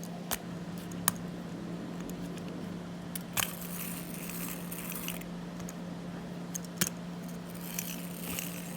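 A tin wind-up toy bus being handled: a few sharp, scattered metallic clicks and light rattles over a steady low hum.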